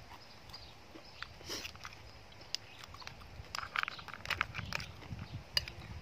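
A person eating seafood salad: chewing with small wet mouth clicks, and a metal spoon tapping and scraping the plate, in a run of short clicks through the second half.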